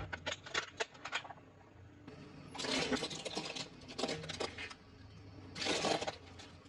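Close-up eating sounds: a quick run of sharp crunchy clicks, then three longer bursts of crunching and chewing.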